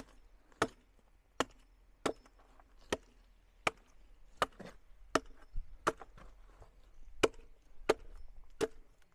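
A hand tool striking repeatedly in an even rhythm of about three strikes every two seconds, roughly thirteen sharp chopping blows in all.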